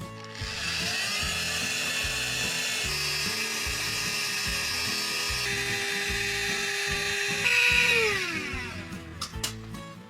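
A small motor whining steadily at high pitch, then winding down in pitch near the end. Background music plays underneath.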